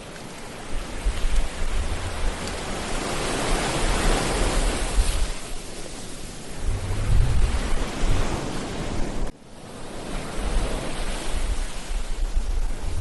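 Ocean surf breaking and washing up a beach, swelling and easing in long surges, with a low rumble of wind on the microphone. The sound drops away abruptly for a moment about nine seconds in, then builds again.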